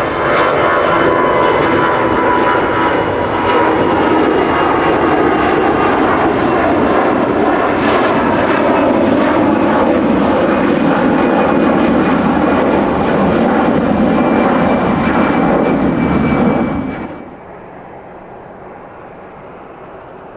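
Jet airliner's engines running loud and close, a dense rushing roar with a faint steady whine through it. It cuts off abruptly about 17 seconds in, leaving a much quieter background.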